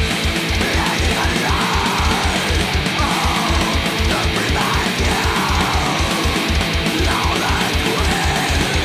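Heavy metal recording: distorted electric guitars over a fast, steady kick-drum beat.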